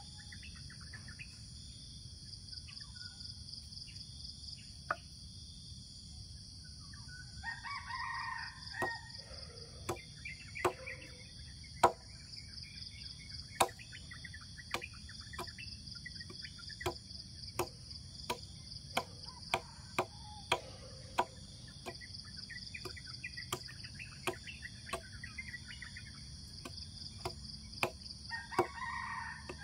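A steady high insect drone, with a bird calling loudly twice, about 8 seconds in and again near the end. Sharp knocks come about once a second through most of it.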